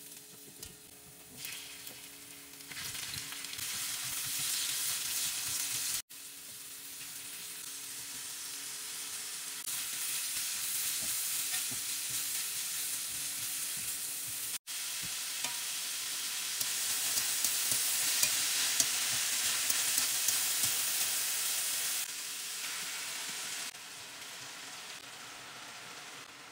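Hot oil sizzling in a stainless-steel wok as garlic and then shredded cabbage and carrot fry and are stirred and tossed with a spatula. The sizzle swells about three seconds in, grows louder in the middle, and breaks off for an instant twice.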